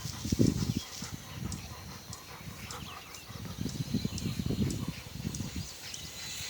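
German shorthaired pointer panting in quick, uneven bursts, with a faint steady high whine behind it.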